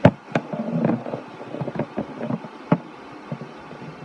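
A hockey stick knocking and scraping in a glass terrarium with a sand floor: a sharp knock right at the start, another just after, scraping and rustling through the next second or so, and one more sharp click near three seconds in.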